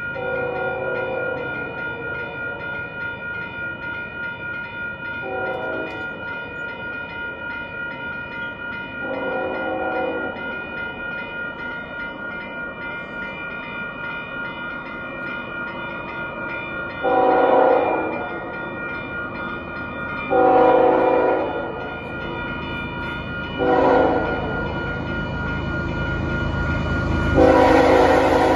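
Canadian Pacific freight locomotive's multi-tone horn blowing for a level crossing as the train approaches. There are fainter blasts at first, then a loud long, long, short, long sequence near the end. Under it the crossing's warning bell rings steadily, and the train's rumble grows as it nears.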